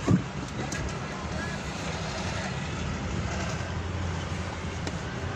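Engine and road noise heard from inside a moving vehicle: a steady low rumble, with a single thump just at the start.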